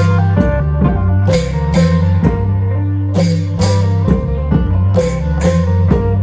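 Isan klong yao long-drum band playing amplified music: regular drum strikes with bright cymbal splashes about twice a second over a steady low bass, and a plucked string melody on top.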